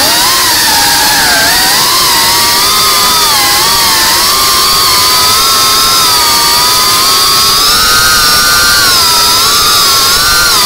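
iFlight Cinelog 35 cinewhoop FPV drone's motors and ducted propellers whining, several close pitches drifting up and down together as the throttle changes.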